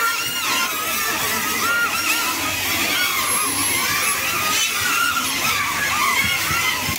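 Several caged drone-soccer quadcopters flying at once, their propellers whining; the pitch swoops up and down quickly and constantly as the motors speed up and slow down.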